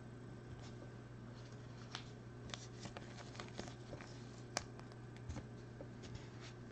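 Faint handling of 2020 Topps Finest baseball cards: scattered light clicks and slides as the cards are flipped through and set down, with one sharper click about two-thirds through, over a steady low hum.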